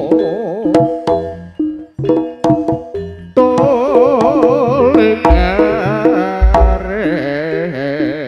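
Jaranan gamelan music played loud through a sound system: sharp hand-drum strokes and a few deep bass hits under a sustained melody line with heavy vibrato.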